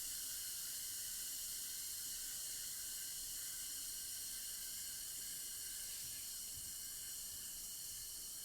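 Effervescent tablet fizzing as it dissolves in water: a steady high hiss of bubbles that slowly fades.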